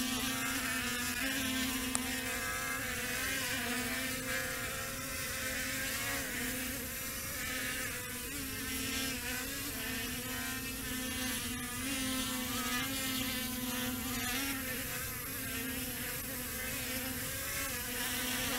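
DJI Matrice quadcopter's motors and propellers buzzing steadily in flight, the pitch wavering slightly as it manoeuvres.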